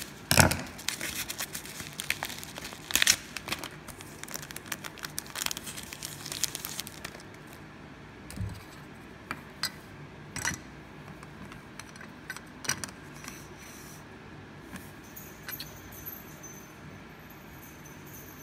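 Scissors snipping through a padded bubble mailer, with the paper envelope and bubble wrap crinkling and tearing as it is opened. After about seven seconds the rustling thins to a few light clicks and taps as the plastic card slab is handled.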